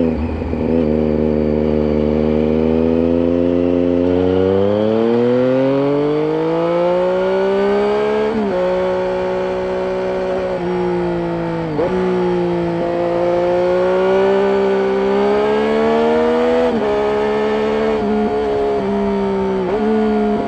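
A 2007 Triumph Street Triple 675's inline-three engine running under way through a Roads Italia aftermarket exhaust fitted with its dB killer. The revs climb steadily for the first eight seconds, then hold with four brief, sharp dips in pitch.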